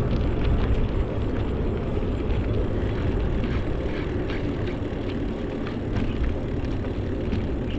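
Steady low rumble of wind buffeting the microphone and road noise from a moving bicycle, with faint scattered ticks and rattles.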